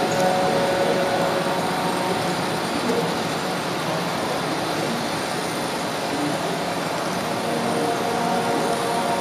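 Model train running along its track, heard from on board: a steady rolling rattle of wheels on rails, with faint steady tones that fade mid-way and return near the end.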